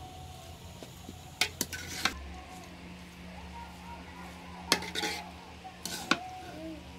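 Long metal slotted spoon stirring cooked rice in a metal pot, knocking and scraping against the pot's rim and sides in a few sharp clinks, in clusters about a second and a half in, near five seconds and again around six seconds.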